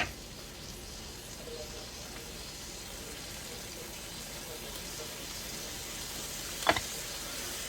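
Hamburger steaks frying in a hot iron skillet, a steady sizzle that grows slightly louder, with a light click at the start and another near the end.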